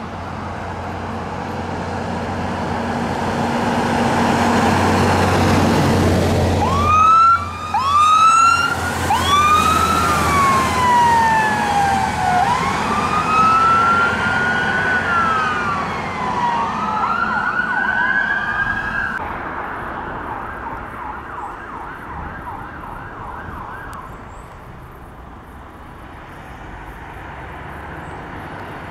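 A heavy fire engine's diesel engine draws near, then electronic sirens cut in with quick rising yelps and go on into long wailing sweeps up and down, with a short fast warble. The sirens then fade as the appliances pull away, leaving passing road traffic.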